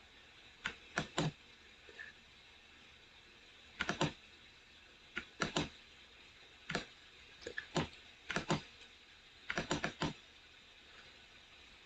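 Clicking of a computer mouse and keyboard: sharp clicks, mostly in quick pairs and short runs of three or four, about every second or two with quiet gaps between.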